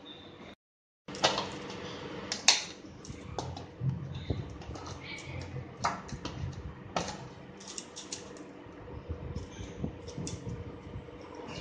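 Hands kneading soft palm-fruit dough on a steel plate and pinching it into pieces: irregular sticky slaps, taps and clicks of dough and fingers against the metal, over a faint steady hum.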